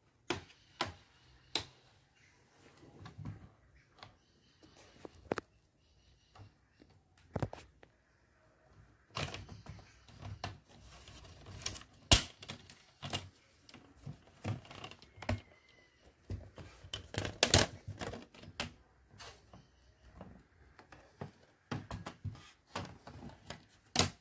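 Plastic screen bezel of an Acer Aspire 5349 laptop being pried off by hand: a long run of irregular sharp clicks and snaps as its clips let go. The loudest snaps come about halfway through and again right at the end.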